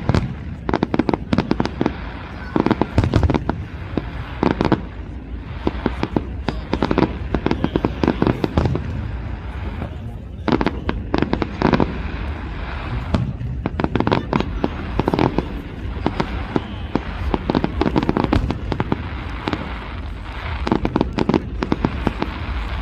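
Aerial fireworks display: shells bursting overhead in a continuous barrage of bangs and crackling, with a brief lull about ten seconds in before denser volleys.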